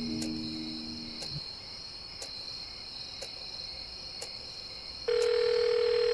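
Crickets chirring steadily with a faint tick about once a second, as a few sustained music notes die away in the first second or so. About five seconds in, a phone's ringback tone sounds in the earpiece: one loud, steady low tone held for about two seconds.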